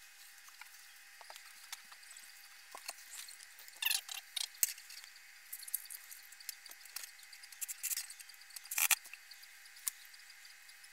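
Hands handling small hardware and tools on a particleboard panel: scattered light clicks and short rustles, with a few louder knocks about four and nine seconds in. The cordless drill is not running.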